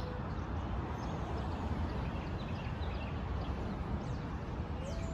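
Outdoor background noise: a steady low rumble with faint bird chirps over it.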